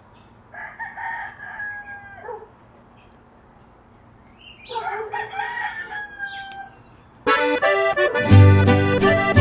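A rooster crows twice, each crow held and then falling away at the end. About seven seconds in, band music with accordion and heavy bass starts.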